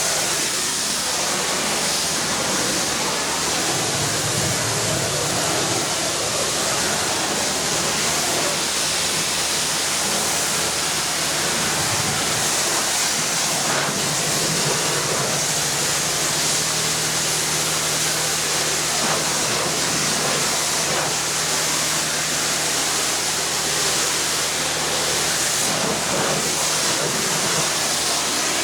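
High-pressure washer wand spraying water in a steady hiss, with a steady low hum from the washer's motor and pump underneath.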